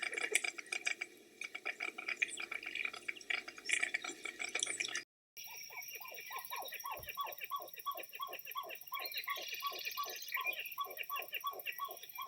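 Birds calling: dense, rapid chattering for about five seconds, then, after a short break, a quick, even series of short downward-sliding notes, about three a second.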